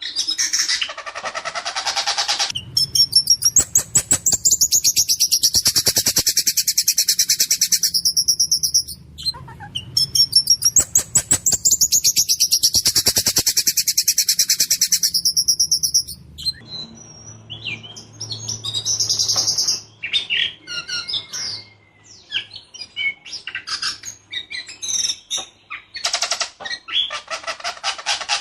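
White-rumped shama singing: long runs of rapid, harsh repeated notes delivered as fast rolls, broken by a short pause about nine seconds in, then shorter, varied chips and phrases after about sixteen seconds.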